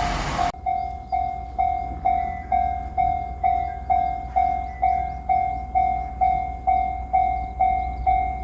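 Japanese railroad crossing alarm ringing its repeated 'kan-kan' ding, about two a second, over a low rumble. Loud train noise from a passing 8000-series limited express cuts off suddenly about half a second in.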